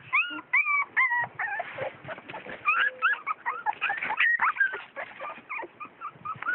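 Sheepdog puppies whimpering and squealing: a quick run of short, high, arched cries, several a second, with no pause.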